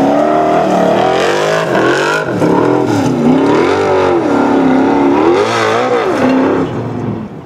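Formula Offroad hill-climb buggy's engine at full throttle up a steep sand hill, revving up and down over and over as the tyres dig and spin. The engine note drops away near the end.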